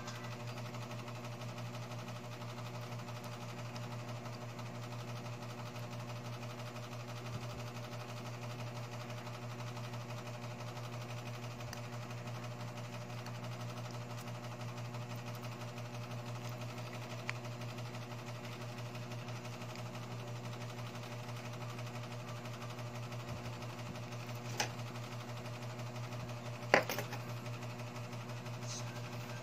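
Steady low mechanical hum with a few small sharp clicks of tweezers on small metal phone parts, the loudest click near the end.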